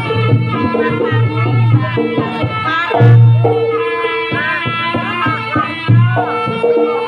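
Live jaranan music from a Javanese ensemble: hand-struck kendang drums with deep low strokes under a wavering melodic line.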